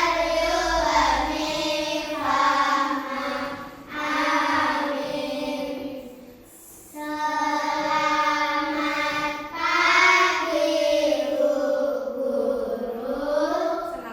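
Children singing a song, held melodic notes with a short break about six seconds in.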